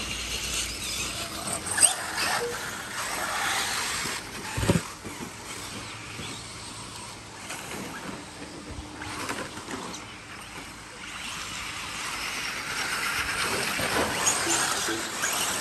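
A pack of RC off-road race cars running on a dirt track: high motor whine and tyre noise that swell and fade as the cars pass, with a couple of sharp knocks about two and five seconds in.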